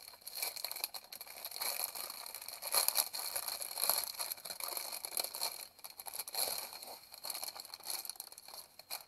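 Resin diamond-painting drills rattling inside their strip of small sealed plastic packets as it is handled, mixed with crinkling plastic: an irregular, dense crackle of tiny clicks.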